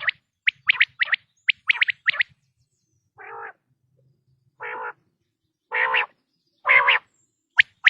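Male common quail calling: quick clusters of short, sharp, high 'whit' notes, then four slower, lower, rasping nasal notes about a second apart, and one more sharp note near the end.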